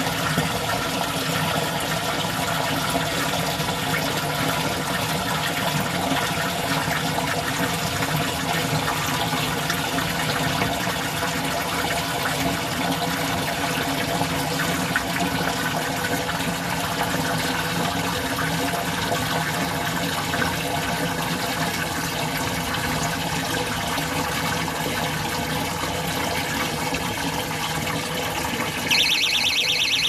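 Water gushing steadily into an overhead water tank as it fills from a pump. About a second before the end, a high-pitched alarm buzzer starts pulsing rapidly and becomes the loudest sound: the float switch signalling that the tank is full.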